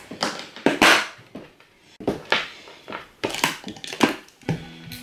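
Hand staple gun firing staples through velvet upholstery fabric into a chipboard chair-seat base: several sharp clacks at uneven intervals, the loudest just under a second in.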